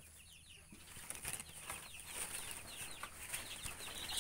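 Baby chicks peeping: a flurry of short, high, falling cheeps that gets busier from about a second in. A steady high hiss runs underneath.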